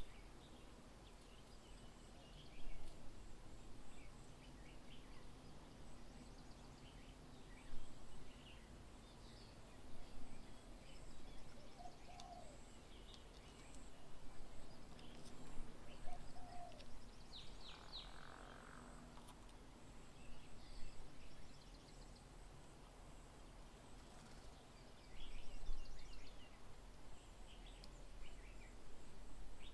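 Garden birds calling and chirping here and there, short chirps and trills coming every few seconds, over a steady faint high-pitched hum.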